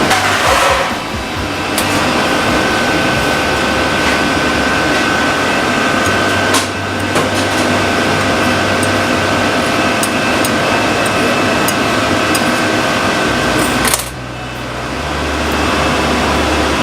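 Steady mechanical hum with a constant high whine over it and a few faint clicks.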